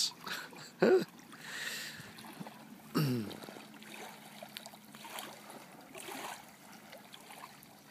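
Faint trickling and light splashing of lake water, broken by two short vocal sounds with falling pitch, about one second and three seconds in.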